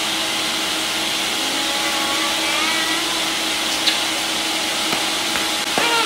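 Countertop blender running steadily, blending red chile salsa. It is the third run, to break up the chile chunks that remain. A steady motor hum sits under an even rushing whir.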